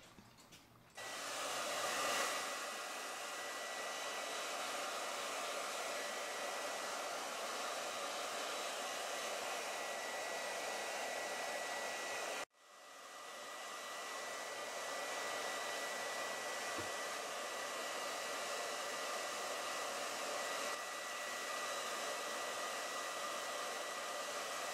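Electric heat gun blowing steadily with a thin high whine, drying the freshly washed wooden clock case and plate. It starts about a second in, cuts out abruptly about halfway through, and builds back up within a second.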